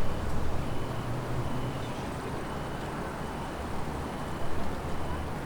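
Wind blowing through trees, a steady rushing with a low gusty rumble of wind against the microphone. A faint high chirp repeats about once a second.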